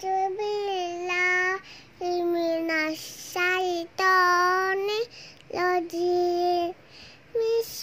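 A young child singing in long held notes, with short breaks between phrases and a few upward slides in pitch.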